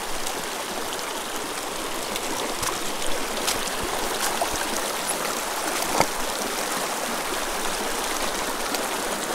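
Small mountain creek running over rocks: a steady rush of water. A few short sharp clicks come over it, the loudest about six seconds in.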